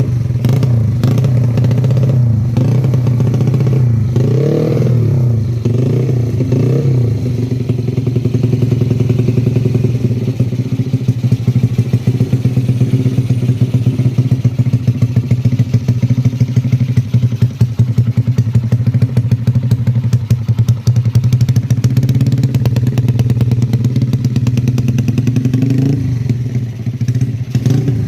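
Yamaha Jupiter Z 115cc single-cylinder four-stroke engine running at a steady idle with a fast, even exhaust beat, blipped a few times about four to seven seconds in and once more near the end.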